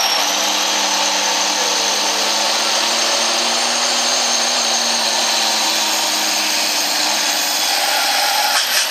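Altered semi truck's diesel engine running at full throttle under heavy load as it drags a weight-transfer sled, a loud steady noise. The engine note breaks off abruptly near the end.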